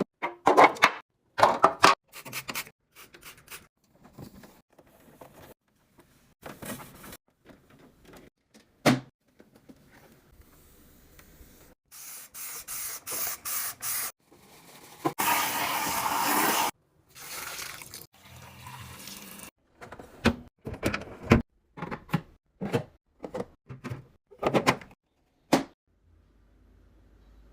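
Kitchen fridge cleaning and restocking sounds: many separate clicks and taps of containers and packaging being handled. About halfway through come a quick run of short hisses, then a longer hiss of liquid being sprayed or poured.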